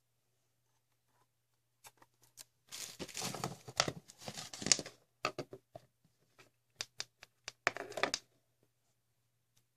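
Handling noise from a plastic Wi-Fi router with four antennas being turned over and set down on a floor, then its plug-in power adapter and cord laid beside it: rustling and scraping, a few sharp clicks, and a last short clatter near the end.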